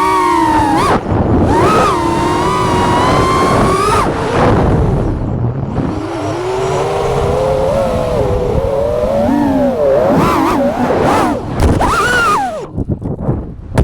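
FPV quadcopter's electric motors and propellers whining in flight, the pitch rising and falling continuously with the throttle, breaking up near the end.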